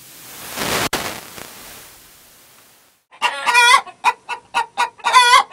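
A rushing whoosh that swells and fades over the first couple of seconds, then a chicken clucking in a quick run of short, repeated calls.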